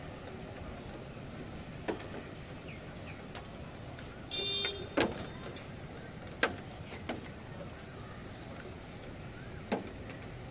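Steady storm ambience: an even hiss of rain and wind, broken by a few sharp taps and a short high-pitched beep about four and a half seconds in.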